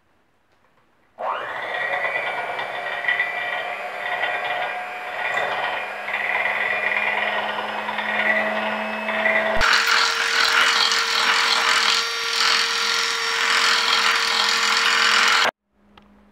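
Electric hand mixer running, its beaters whipping cold whipping cream toward soft peaks. The motor starts about a second in, runs steadily, then steps up to a higher pitch and gets louder about ten seconds in, and cuts off suddenly near the end.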